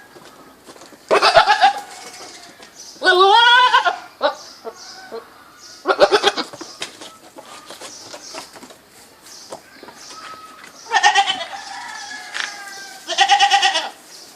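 Goats bleating: five separate bleats a few seconds apart, the second one with a quavering pitch.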